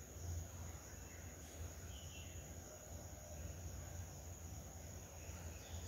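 Faint, steady sizzle of medium-hot oil bubbling around a stuffed chana dal puri frying in a pan, over a low steady hum.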